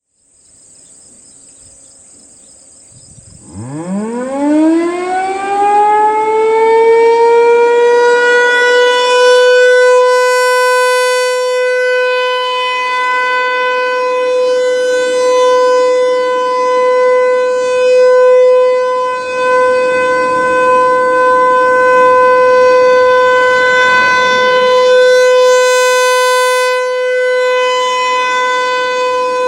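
ASC T-135 outdoor warning siren sounding a test: about three seconds in it winds up, its pitch rising steeply and then levelling off into a loud, steady tone that holds to the end.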